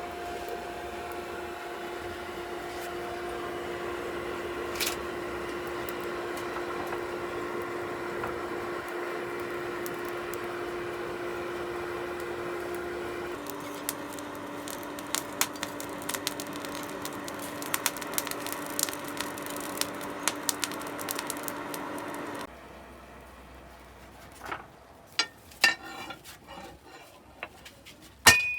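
An electric grinder motor runs with a steady hum. About halfway its pitch drops and a run of crackling ticks begins, the sound of steel being pressed against it and ground. It shuts off suddenly, and a few sparse light metal clicks follow.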